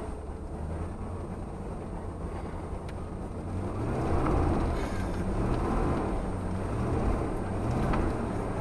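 1990 Ford F-150's 5.0-litre (302) V8 running with tyre and road noise, heard from inside the cab while driving on a snowy road. It gets louder about four seconds in.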